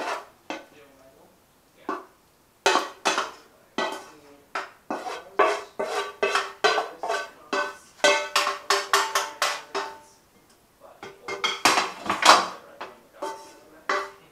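A wooden spoon scraping and knocking stir fry out of a frying pan into a ceramic bowl: a rapid, uneven run of clacks and taps, some ringing briefly, with short lulls about a second in and again near ten seconds.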